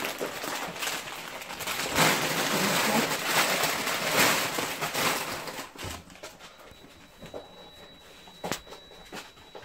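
Close rustling and handling noise, hands moving against the recording phone and the grocery packaging around it, dense for about six seconds and then much quieter, with a few soft knocks.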